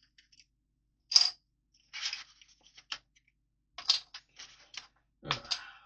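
Hard plastic Lego pieces clicking and rattling as they are handled and pressed together, in short irregular clusters, the sharpest click about a second in.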